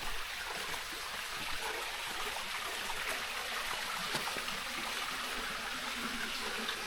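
A mountain stream running over rocks: a steady, even rush of water.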